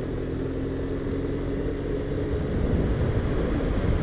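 BMW R1200RT's boxer twin engine running at a steady road speed, mixed with wind and road rumble on the microphone. The steady engine note fades into the rumble a little over two seconds in.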